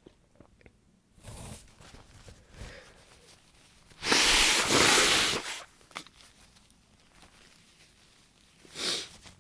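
A woman with a congested head cold blowing her nose hard into a tissue once, about four seconds in, lasting about a second and a half, with shorter, fainter breathy sounds before it and near the end.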